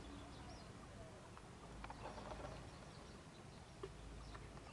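Faint outdoor ambience with a few faint, short, high bird chirps and a couple of small clicks.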